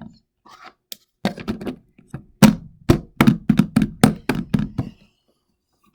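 Plastic slime container being closed and put away: a quick run of about a dozen thuds and taps, roughly three a second, as the lid is pressed on and the tub is handled.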